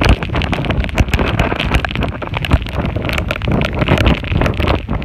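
Hurricane storm-surge waves crashing and water rushing, with strong wind buffeting the microphone in constant rough gusts.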